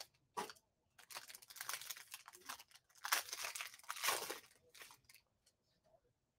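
Silver foil wrapper of a Panini Zenith football card pack being torn open and crinkled, in irregular rustles and crackles that stop about five seconds in.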